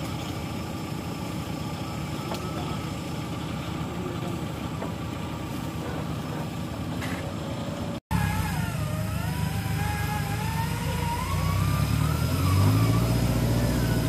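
Off-road 4x4 engine running steadily. After a cut about eight seconds in, the engine is louder and revs up near the end, with a wavering whine above it.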